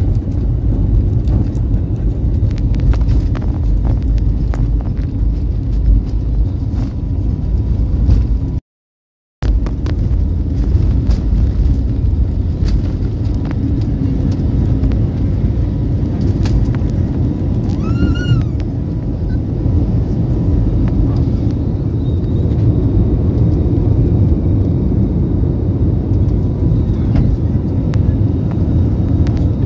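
Jet airliner engines at takeoff power, heard inside the cabin: a loud, steady, deep rumble as the plane rolls down the runway and climbs away. The sound cuts out for under a second about nine seconds in, and a brief high chirp comes about eighteen seconds in.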